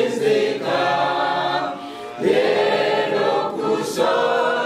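A congregation singing a hymn together, in long held notes. One phrase ends about two seconds in and the next begins right after.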